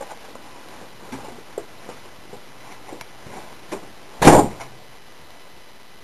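A single loud, short thump a little over four seconds in, with a few faint knocks before it.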